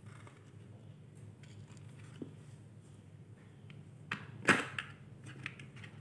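Hands handling a small speaker driver and wooden speaker box: a few light clicks and one sharp knock about four and a half seconds in as the speaker is set into the box, over a low steady hum.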